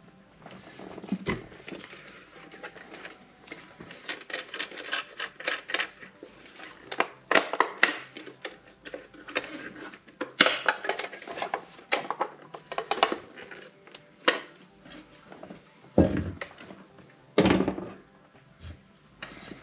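Irregular clicks, knocks and metallic clatter of hand tools and small hardware being handled and worked at a boat's dash, with a couple of heavier thuds near the end.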